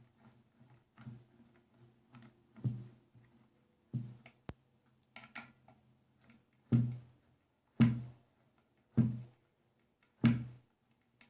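Hand wrench cranking down the hanger's mounting bolts on the nailer: a run of short ratcheting strokes about one a second, the last four louder as the bolts are drawn tight.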